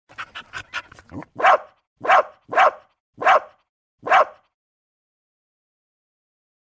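A dog barking: a quick run of short, quieter sounds, then five loud barks about half a second to a second apart.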